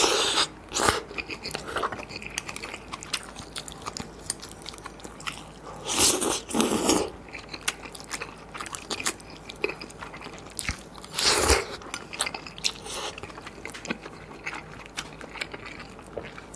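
Close-miked eating of maratang: noodles slurped into the mouth and chewed with many small wet clicks. There are several louder slurps, at the start, twice around six to seven seconds in, and once about eleven seconds in.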